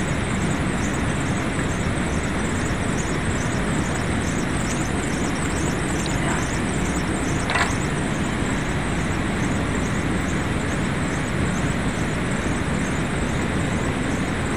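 Steady, even rushing noise with two faint clicks about halfway through.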